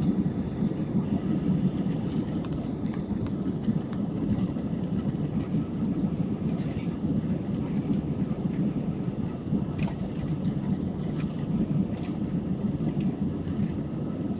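Airbus A320's jet engines heard from inside the cabin during takeoff, a steady low rumble of engine and airflow noise with a few light cabin rattles.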